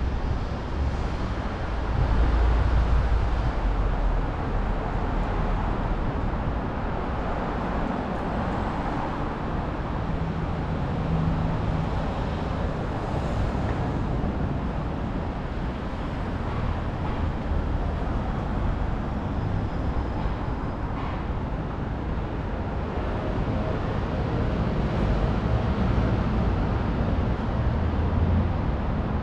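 Steady street traffic noise with the low rumble of passing vehicles, swelling a couple of seconds in and again near the end.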